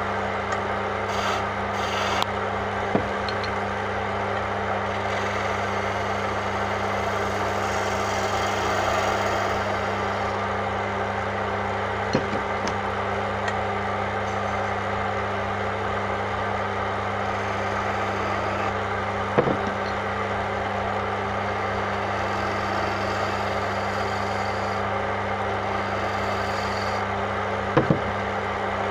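Wood lathe running steadily with a low motor hum while a hand chisel cuts at the spinning wooden chess piece, the cutting noise swelling and easing. A few short sharp clicks stand out over the hum.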